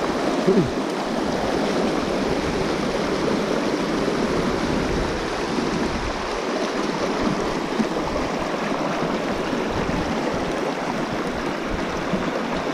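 Shallow, rocky mountain stream rushing steadily over cobble riffles, with a short splash about half a second in as a released trout goes back into the water.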